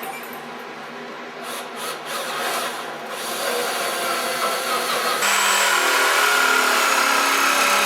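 A power tool motor runs steadily at one speed, starting about five seconds in, over general work noise during cabinet installation.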